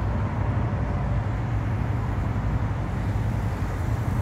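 Road traffic at a city intersection: cars passing through with a steady low noise of engines and tyres.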